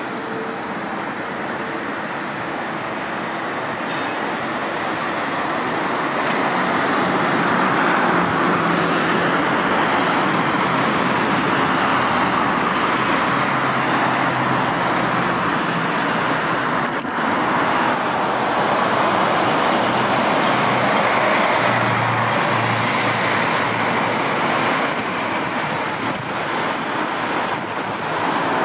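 Steady rushing vehicle noise with a low engine hum underneath, swelling over several seconds and easing near the end.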